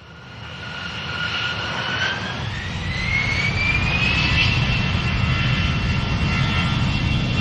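Jet engines of an Emirates Airbus A380 over a low rumble, growing louder over the first few seconds. Their whine rises in pitch over a couple of seconds and then holds steady, as the engines spool up.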